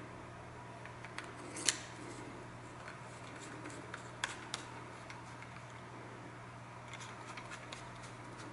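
Small plastic clicks and handling noises as a static mixing nozzle is fitted onto a two-part panel bonding adhesive cartridge in an applicator gun, the sharpest click about two seconds in and a few more near the middle and end. A faint steady hum runs underneath.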